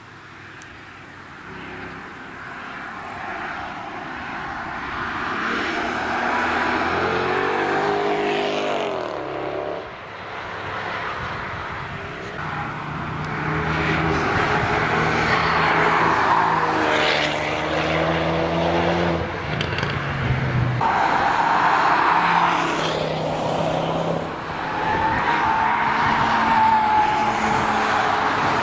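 A succession of road cars driving past at speed through a fast corner on a race track, each engine rising and falling in pitch as the car comes by and goes away, over tyre and road noise. Faint at first, then loud for most of the time.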